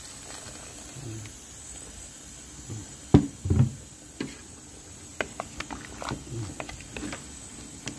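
Cooking utensil knocking against a pot of pork feet in broth: one sharp knock about three seconds in, then a duller thump and scattered light taps as a wooden utensil is worked among the pieces.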